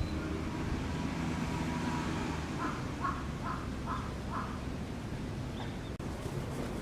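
A crow cawing five times in quick succession, over a steady low background hum.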